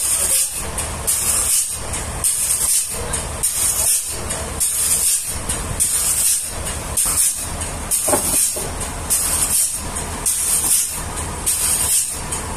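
Sawmill machinery running: a steady low rumble with a hissing burst about once a second.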